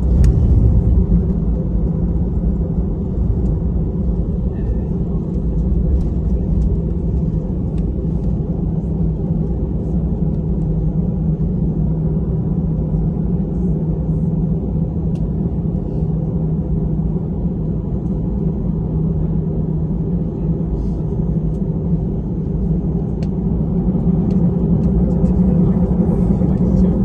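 Cabin noise of an Airbus A320 taxiing, engines at idle: a steady low rumble with a hum, growing slightly louder near the end.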